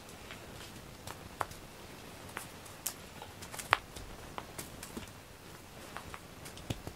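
Cat wand toy being jiggled and dragged over a foam floor mat: scattered light ticks and taps at an irregular pace, the sharpest about halfway.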